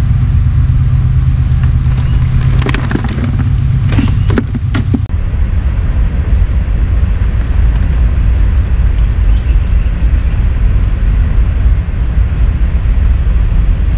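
Steady low rumble of wind buffeting the microphone, with a quick run of clicks and knocks about three to five seconds in.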